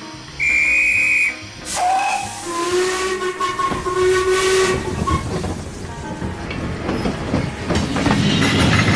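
A short, shrill pea-whistle blast, then a steam locomotive's whistle sounding for about three seconds, followed by hissing steam and repeated puffs that grow louder near the end.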